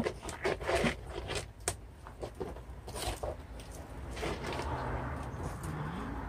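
Gloved hands scraping and pressing loose potting soil in a plastic pot: a run of quick rustles and crackles, then a steadier rubbing hiss over the last two seconds.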